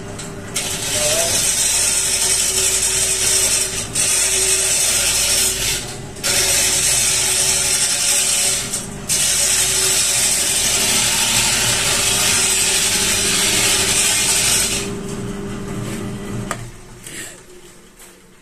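Long square timber post spinning on a wood lathe while a turning tool cuts into it: a loud rasping hiss that breaks off briefly three times as the tool is lifted. The cutting stops about 15 seconds in, the lathe motor hums on alone for about a second and a half, then winds down.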